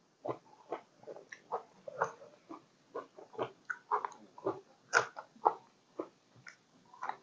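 Close-miked chewing and biting: a person eating Isan fermented sausage with fresh green chili, in short irregular mouth clicks and smacks a few times a second.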